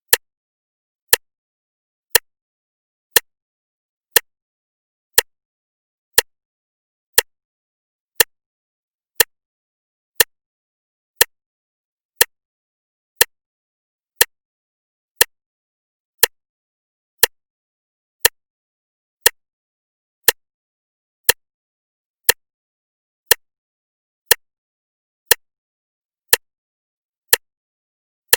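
Clock ticking steadily, one sharp tick each second, evenly spaced with silence between the ticks.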